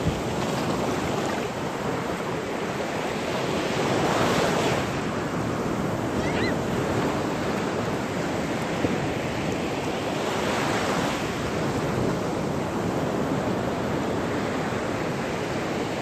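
Surf: small waves breaking and washing up a sandy beach, a steady rush that swells twice, about four and eleven seconds in.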